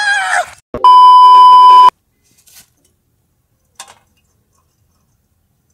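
A man's short shouted cry, cut off by a loud, steady, single-pitched electronic bleep that lasts about a second. Near silence follows, with a few faint clicks.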